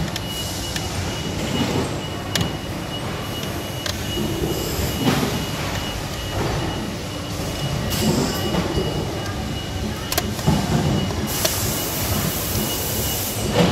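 Clicks and scraping from a screwdriver and gloved hands working at a refrigeration compressor's terminal box, over a steady rumbling background noise.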